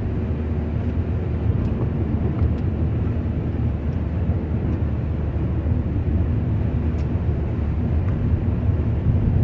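Steady road noise inside a moving car: tyres rolling on wet asphalt, with the engine running underneath and a few faint ticks.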